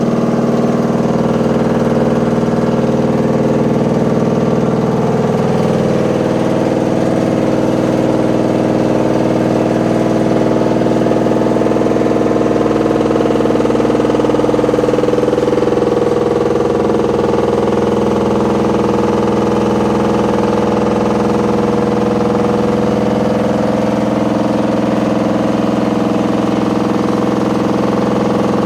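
Washing machine running noisily, a steady loud mechanical drone of several tones that drift slowly in pitch; it sounds as if there were a load of bricks in the drum.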